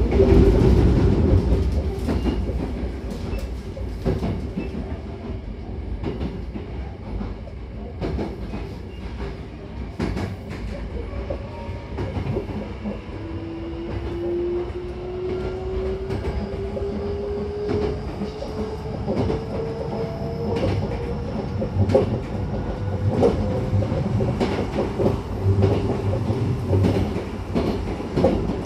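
Inside a Hankyu 9000-series electric train on the move: a steady rumble of wheels on rail with clickety-clack over joints and points, and a faint motor whine that slowly rises in pitch from about halfway through as the train gains speed.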